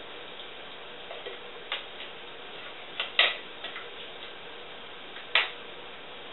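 Pot and utensil clinking: a handful of short, sharp knocks as macaroni and cheese is scraped out of a pot into a baking pan, the two loudest a little past three seconds in and again about five seconds in.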